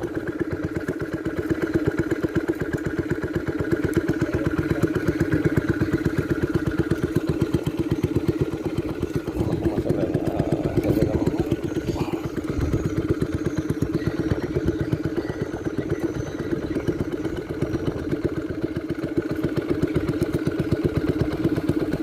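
Small boat engine running steadily at low trolling speed, a fast even putter of firing strokes.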